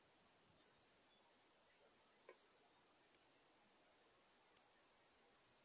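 Three short, sharp, high chip notes a second or two apart, the chip call of a northern cardinal, over near silence.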